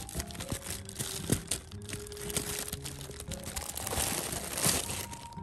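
Gentle background music with steady held notes, over scattered crinkling and rustling of a burlap cat bed; about four seconds in, a louder rustle as the cat inside shifts and pushes against the fabric.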